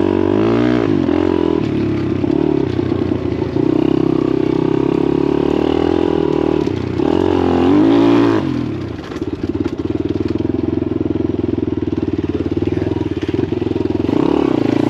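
Daytona 190cc four-valve single-cylinder pit-bike engine under way, the revs rising and falling as the throttle is worked. Pitch climbs about a second in and again to its loudest around the middle, then drops to a lower, steady running note and rises again near the end.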